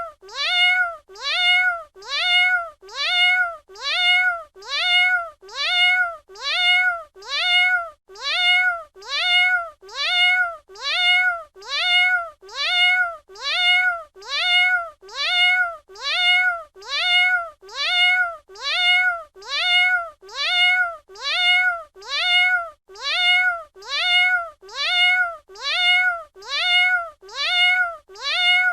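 Domestic cat meowing: the same short meow repeated over and over at an even pace, a little more than one a second. Each meow rises and then falls in pitch, and every repeat looks identical, as in a looped recording.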